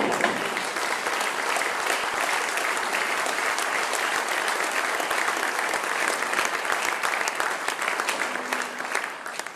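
Crowd of spectators applauding, a dense steady clapping that dies down near the end.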